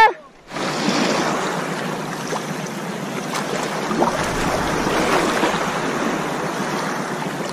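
Small sea waves washing over a stony, pebbly shoreline: a steady rushing hiss.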